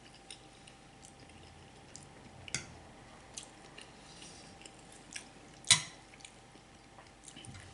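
Quiet wet chewing and mouth sounds of someone eating spaghetti, with scattered soft clicks and two sharper clicks, the louder one a little before six seconds in.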